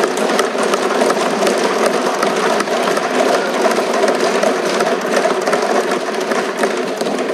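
Many people thumping wooden desks with their hands in approval: a loud, dense, steady patter of rapid knocks.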